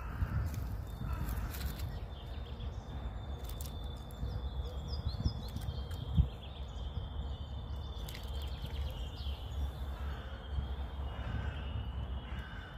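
Low rumble of wind on the microphone outdoors, with faint bird chirps, a few light clicks and one soft thump about six seconds in.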